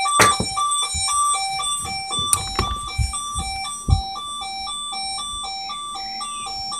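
Burglar alarm panel's internal sounder giving a two-tone warble, a high and a low beep alternating about twice a second. A few sharp knocks of handling come in the first four seconds.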